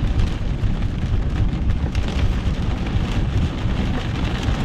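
Steady low rumble of a car driving on a rain-soaked road in heavy rain, heard inside the cabin, with faint patter of rain over it.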